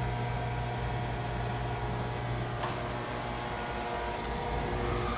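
Chevalier FSG-1632TXII surface grinder running, a steady electric motor hum, with one faint click about two and a half seconds in.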